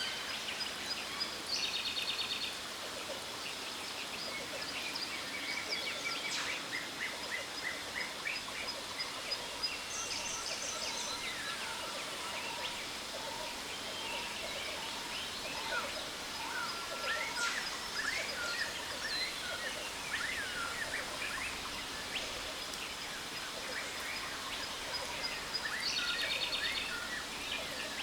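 Jungle birds calling: many short chirps and whistled glides, with fast rattling trills about a second in, around ten seconds in and near the end, over a steady hiss of falling water and a faint steady high tone.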